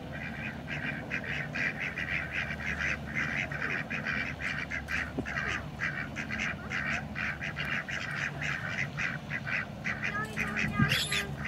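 White domestic ducks quacking in a quick, continuous run of short quacks, several a second, as they crowd up to be fed.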